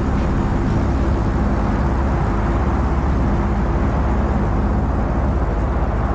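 A steady, deep rumbling roar with a hiss of rushing air over it, a sound effect in an animation of a parachute-retarded bomb falling. A faint low hum under it fades out about halfway through.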